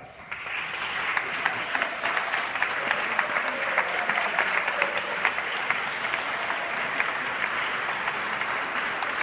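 Audience applauding, the clapping swelling up a moment in and then holding steady.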